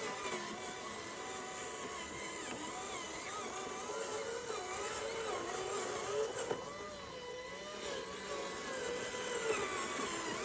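Small electric motors of a radio-controlled model whining. The pitch keeps rising and falling as the controls are worked.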